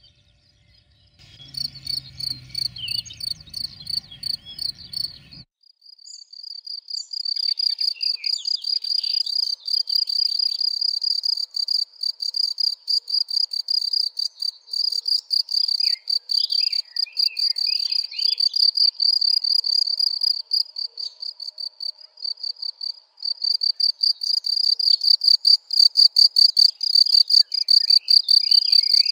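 A cricket chirping steadily in a rapid, even pulse, high-pitched, with faint bird calls behind it. A low rumble comes in with it for the first few seconds and stops with a cut.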